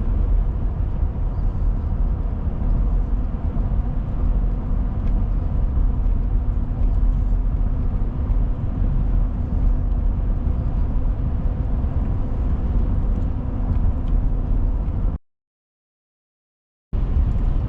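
Steady road and engine rumble of a car driving, heard from inside the cabin. The sound cuts out to complete silence about fifteen seconds in for nearly two seconds, then the same rumble returns.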